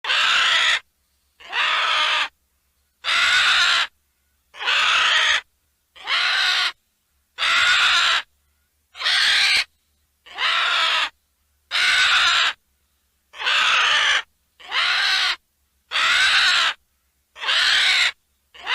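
A dinosaur call sound effect: the same high cry, each under a second long, repeated about thirteen times, roughly one every second and a half with silence between.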